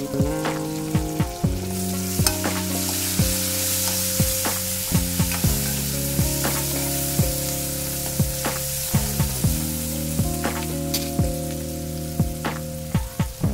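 Sliced green chillies, onion and carrot sizzling in hot oil in a kadai, with a spoon clinking and scraping against the pan in frequent sharp knocks as they are stirred. Low steady tones underneath change pitch every few seconds.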